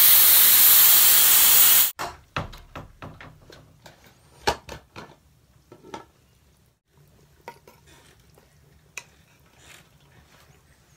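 Pressure cooker releasing steam with a loud steady hiss that cuts off suddenly about two seconds in. Then scattered metal clanks and clinks as the aluminium lid is worked off and a metal ladle knocks against the pot.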